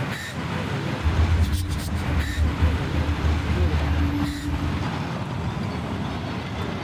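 Train of passenger carriages rolling past close by: a steady rumble and rattle on the rails, heaviest from about a second in until just past four seconds.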